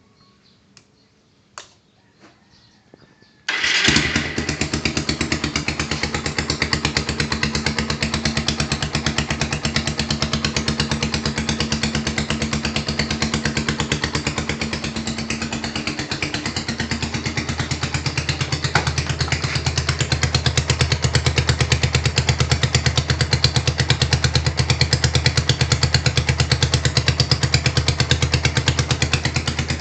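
A few clicks, then a Rouser 220 motorcycle's single-cylinder engine starts about three and a half seconds in and runs steadily at idle with a fast, even pulsing. It carries the knocking that the owner is asking for help with.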